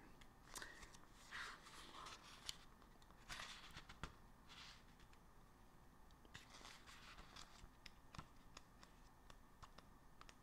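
Soft rustling and flicking of paperback book pages being thumbed through by hand, in short bursts with scattered small clicks.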